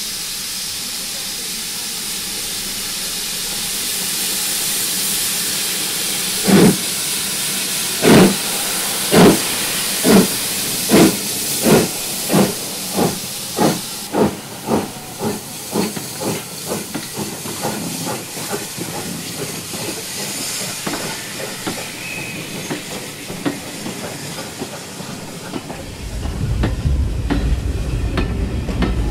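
Steam locomotive with a steady hiss of steam, then starting away about six seconds in: exhaust chuffs at first about a second apart, coming quicker and growing fainter as it pulls away. A low rumble comes in near the end.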